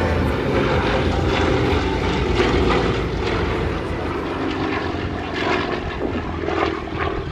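Propeller aircraft engine droning steadily as a display plane flies past, loudest in the first few seconds and easing off after.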